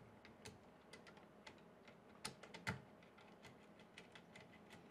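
Faint, irregular small clicks and ticks of a hand screwdriver turning screws into the dual Z-axis bracket at the top of a 3D printer's aluminium frame, with a couple of louder clicks about two and a half seconds in.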